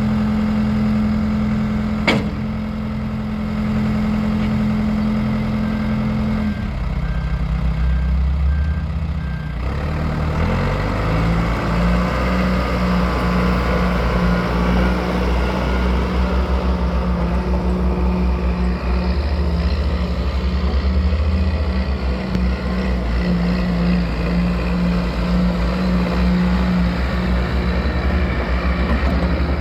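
Diesel engine of a 1996 John Deere 310D loader backhoe running. Its note drops about six seconds in, then rises and runs harder and noisier from about ten seconds on. A sharp click comes about two seconds in, and a short run of beeps a few seconds later.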